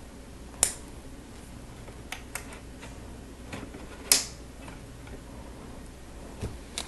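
Plastic Lego pieces clicking as they are handled and pressed together: a few separate sharp clicks, the loudest about four seconds in.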